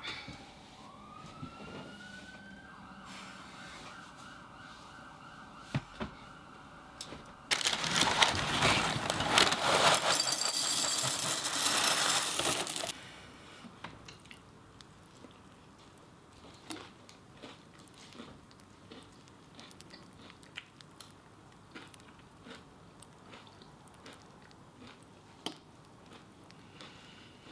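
A siren wailing with rising and falling pitch over the first seconds; then a loud rushing noise for about five seconds that cuts off suddenly; then quiet, with small clinks of a spoon in a cereal bowl and chewing.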